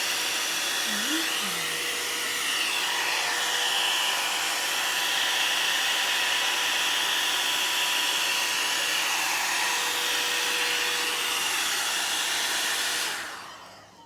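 WAER Professionals one-step hot-air brush dryer running on its low setting, a steady whirring hiss. About a second before the end it is switched off and the sound dies away as the fan spins down.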